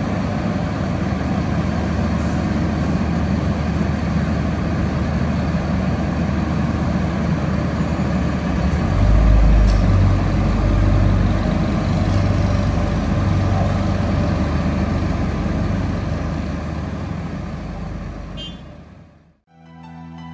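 Diesel engines of an asphalt paver and the tipper lorry feeding it, running steadily as a dense mechanical drone, with a deeper rumble swelling from about nine to thirteen seconds in. The noise fades away near the end.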